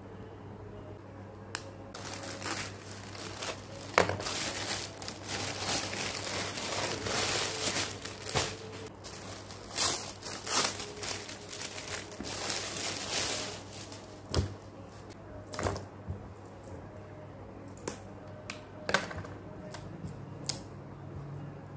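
Plastic packaging crinkling and rustling as a plastic courier mailer and the clear plastic bag inside it are handled and opened. After that, quieter handling with a few sharp clicks and taps.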